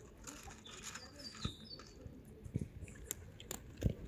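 Cats chewing dry kibble: irregular crunches and clicks. A few short, high bird chirps come about a second in.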